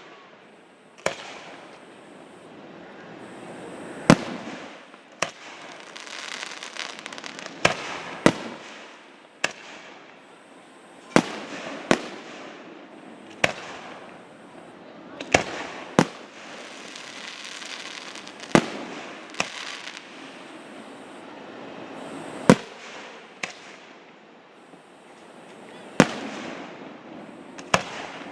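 Fireworks display: aerial shells bursting with sharp bangs every second or two, about seventeen in all, with crackling and hissing between the bangs.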